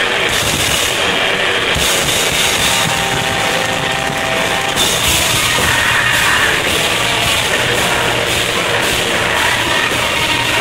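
Grindcore band playing loud live: distorted electric guitar and drums, with a female vocalist screaming into the microphone about halfway through.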